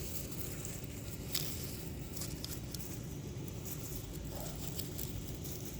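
Steady low rumble of wind buffeting the microphone, with a few faint rustles and clicks, one standing out about a second and a half in.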